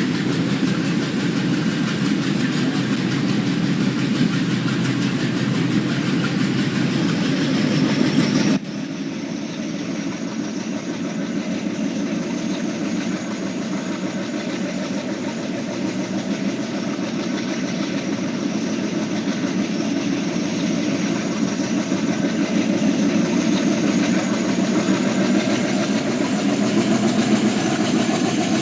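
Alco WDG-3A diesel locomotive's turbocharged V16 engine running. About a third of the way in, the sound cuts abruptly to a somewhat quieter steady engine note with a high whine that slowly rises in pitch, growing gradually louder.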